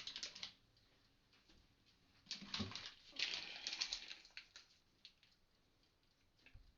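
Rustling and light crackling from hands laying slices of cheese onto bread, in a brief burst at the start and a longer one from about two to four seconds in.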